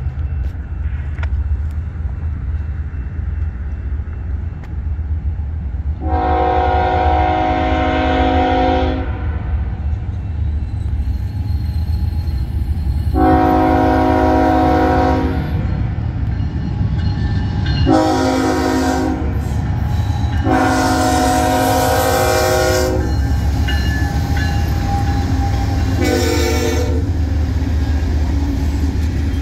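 Diesel freight locomotive's multi-chime air horn blowing two long blasts, a short one and another long one, the pattern of a grade-crossing warning, then a further short blast, over the low steady rumble of the train.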